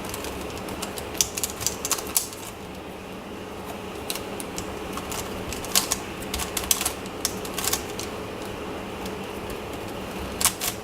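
Plastic twisty-puzzle cube (MoYu Crazy YiLeng) being turned by hand: irregular clicks and clacks as its layers snap round, with a quicker run of louder clicks near the end.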